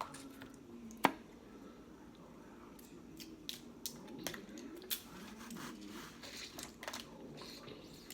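Crab shells being cracked and pulled apart by hand, with scattered sharp snaps and wet squishing; one loud crack comes about a second in.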